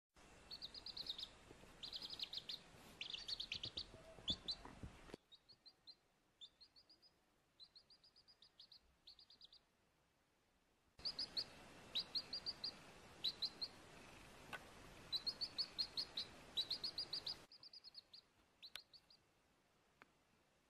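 Baby chick peeping: short, high, downward-slurred cheeps in quick runs of several at a time, repeated all the way through. A faint steady hiss behind them cuts out and back in abruptly.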